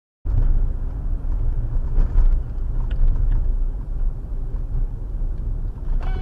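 Steady low rumble of a car driving, heard inside the cabin, starting abruptly about a quarter second in. Near the end a car horn begins to sound.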